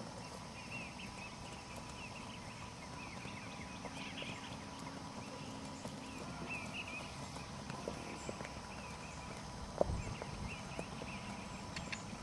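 A ridden horse's hoofbeats walking on grass turf, a soft steady rhythm, with one sharper thump about ten seconds in.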